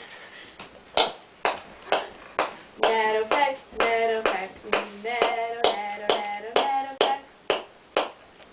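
Sharp, regular ticks about twice a second, with a voice singing or humming a simple tune in held notes over them from about three seconds in until about seven seconds.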